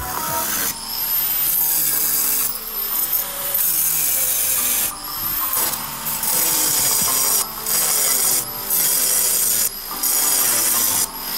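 Angle grinder cutting steel on a school bus's side panels, in repeated bursts a second or two long, the motor whining up in pitch at the start of several of them.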